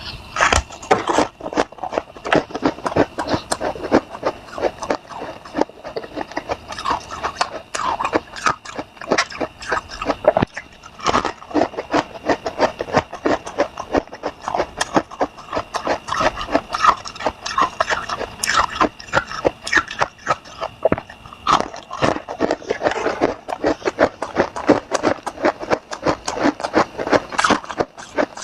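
Freezer frost being bitten and chewed fast: a rapid, uneven run of crisp crunches, several a second.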